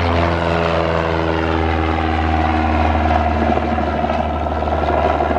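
Cessna 172P Skyhawk's four-cylinder Lycoming piston engine and propeller at full take-off power, a steady drone as the plane climbs away after lift-off.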